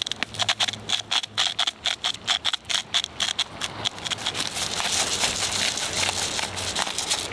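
Hand salt and pepper grinders twisted over a frying pan of cherry tomatoes: a quick run of crunchy clicks for the first few seconds, then a denser, steadier grinding.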